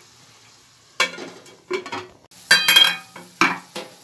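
Metal cookware clanking and scraping against an aluminium cooking pot: several sharp knocks from about a second in, the loudest ringing briefly, over a faint sizzle.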